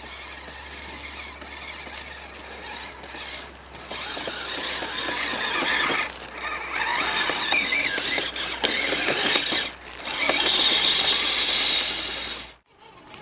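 Kyosho Blizzard RC snow cat's electric motor, gearbox and tracks running through wet snow. A high-pitched mechanical squeal gets louder and softer as the throttle changes, then cuts off sharply near the end.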